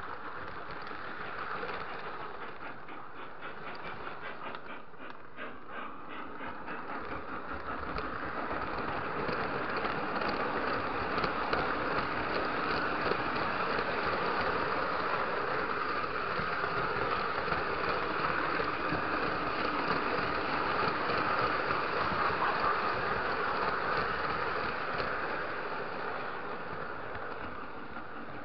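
Lionel O-gauge three-rail model train running along its track, with the wheels and motor close on a camera riding the train. It grows louder about eight seconds in and eases off slightly near the end.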